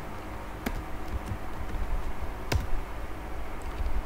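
Computer keyboard keystrokes: two clicks, a lighter one about half a second in and a sharper one about two and a half seconds in, over a low steady hum.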